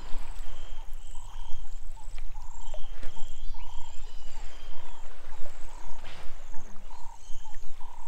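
Riverbank wildlife: short calls repeating roughly once a second, with scattered bird chirps, over a steady low rumble.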